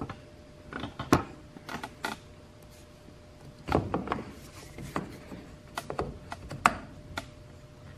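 A small metal sensor wrench and hands working the water-in-fuel sensor loose from the bottom of a spin-on fuel water separator filter: scattered light clicks and knocks, coming in short clusters.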